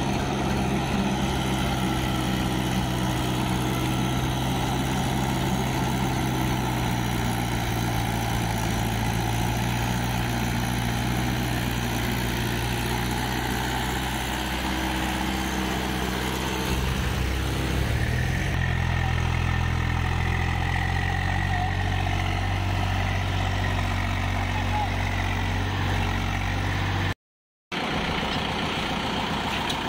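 Swaraj 843 XM tractor's three-cylinder diesel engine running steadily under load as it hauls a loaded trailer through shallow water, with water splashing around the wheels. The engine note changes about eighteen seconds in, and the sound drops out for a moment near the end.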